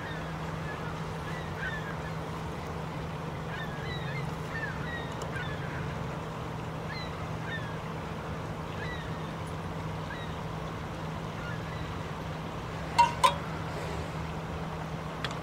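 Steady rush of a shallow stream running over rocks, with a low hum underneath and faint high chirps scattered through the first half. Two short sharp sounds close together near the end are the loudest thing.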